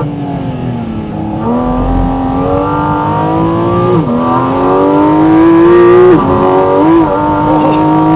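Porsche 718 Cayman GT4 RS's 4.0-litre naturally aspirated flat-six, loud inside the cabin. The revs fall, then climb hard under acceleration with quick gear changes about four and six seconds in, a short throttle blip near seven seconds, then hold steady.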